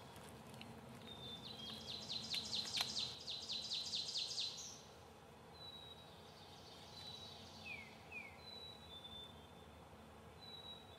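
Small songbirds singing faintly. One gives a rapid high trill lasting about three seconds, starting a second or so in, and a few thin high whistled notes and two short falling chirps follow later.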